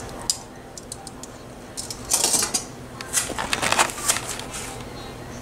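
Kitchen clatter of cooking utensils against a pot and dishes: a single click, then two spells of quick clinks and scrapes, the busiest about two seconds in and from three to four seconds in.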